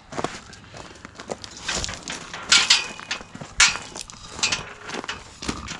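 Steps crunching irregularly on gravel, with several louder scraping knocks.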